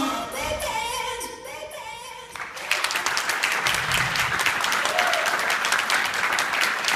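A big band song ends on its final sung notes. About two and a half seconds in, audience applause breaks out suddenly and keeps going.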